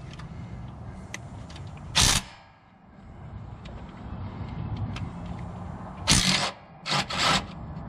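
DeWalt cordless impact wrench run in short bursts to loosen a bolt: one brief burst about two seconds in, then three more close together near the end.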